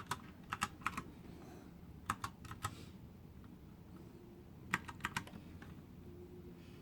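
Typing on a 61-key retro typewriter-style mechanical keyboard: sharp key clicks in short clusters of three or four, with pauses of a second or two between them.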